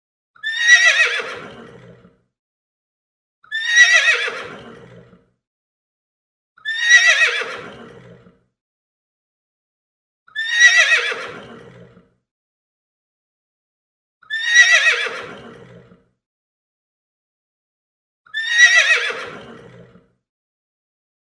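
A horse neighing six times, every three to four seconds. Each whinny starts high, slides down in pitch as it fades, and is followed by silence.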